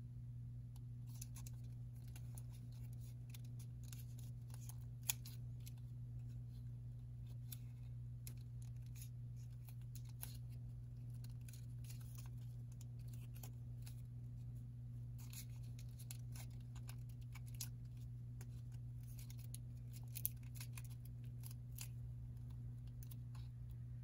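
Origami paper crackling and creasing under the fingers as it is folded: a string of faint, crisp crackles, with two sharper clicks, one about five seconds in and one about twenty seconds in, over a steady low hum.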